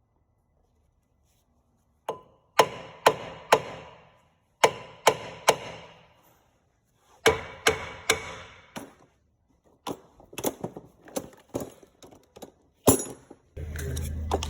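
Hammer blows on metal, each one ringing briefly. They come in three groups of three or four strokes about half a second apart, then a run of lighter, quicker taps and one last hard blow. A steady low hum starts near the end.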